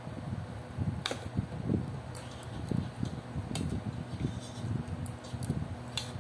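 Steady low hum, like a running electric fan, under a few sharp clicks and taps from eating by hand off a plate.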